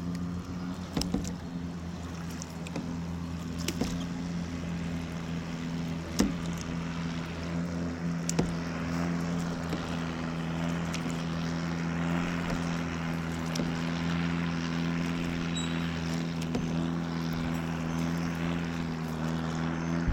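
A boat's motor running at a steady pitch, with a few sharp knocks.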